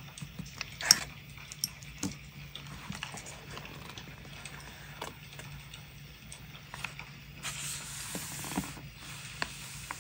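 Paper-crafting handling sounds: light clicks and taps of fingers and metal tweezers on a paper notebook page as a sticker is pressed down, the loudest about a second in. Near the end a notebook page is turned with a brief rustle of paper.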